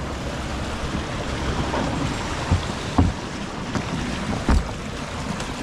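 Motorboat underway: its outboard motor runs under a steady rush of wind noise on the microphone, with a few low thumps partway through.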